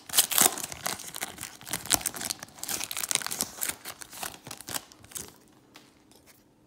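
Foil wrapper of a baseball card pack being torn open and crinkled by hand, in a dense run of crackles that dies away about five seconds in as the cards are slid out.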